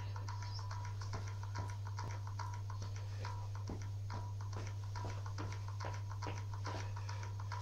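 Quick, irregular taps and clicks of feet shuffling on the floor while dancing, several a second, over a steady low electrical hum.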